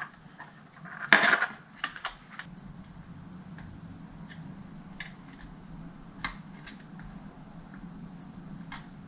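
Small clicks and taps of laptop parts being handled on a workbench, with a brief scraping rustle about a second in, over a steady low hum.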